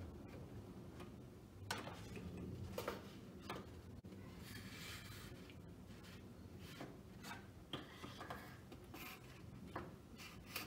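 Faint scattered clicks and rubbing of a plastic radiator fan shroud being pressed and worked down into place in a car's engine bay.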